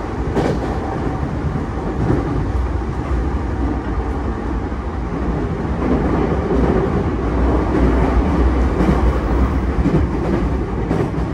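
E233 series 5000-subseries electric train running at speed, heard from inside the carriage: a steady heavy rumble of wheels on rail, with a few faint clicks.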